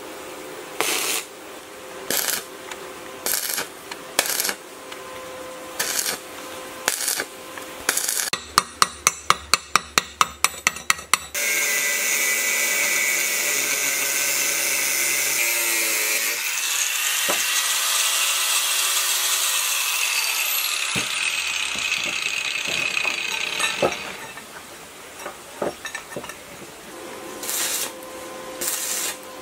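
Stick (arc) welding on steel plate in short bursts, each a second or less, then a quick run of about a dozen sharp taps. An angle grinder then cuts steel for about twelve seconds, followed by more short welding bursts.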